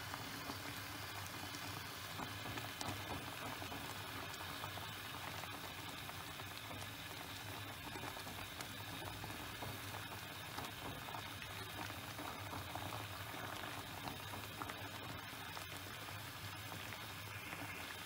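Pot of water at a rolling boil around blanching leafy greens: a steady bubbling hiss flecked with many small pops.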